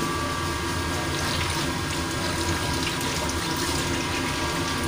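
Water running steadily from a tap into a stainless-steel galley sink, over a steady low machinery hum.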